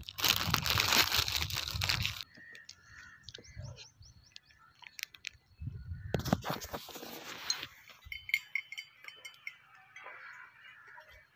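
Plastic ice-cream wrapper being torn and crinkled open, in two loud rustling bursts: one over the first two seconds and one about six seconds in, with softer rustling between. Birds chirp faintly near the end.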